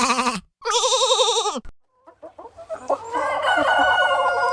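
Two wavering bleats, then a few clucks and a rooster crowing in one long call that starts about three seconds in.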